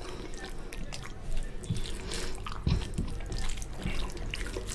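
Fingers squishing and mixing rice into oily fish curry on a plate, giving a run of small wet, sticky clicks and squelches.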